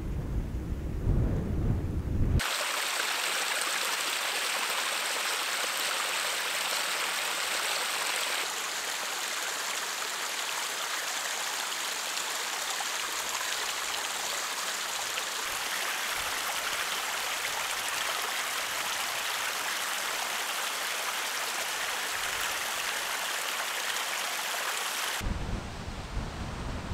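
Steady, even hiss of water, starting abruptly about two seconds in and stopping suddenly near the end. Before and after it there is low wind rumble on the microphone.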